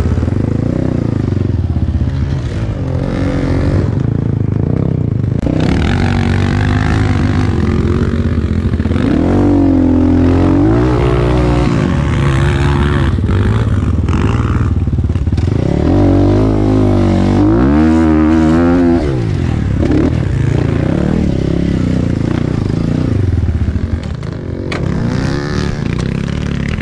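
Dirt bike engine revving up and easing off again and again under load on a steep, loose dirt hill climb, its pitch rising and falling in repeated swings. It gets quieter near the end.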